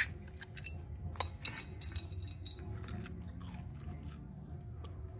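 Glass beer bottle's cap pried off with the teeth: one sharp click, then a string of faint clicks and mouth noises.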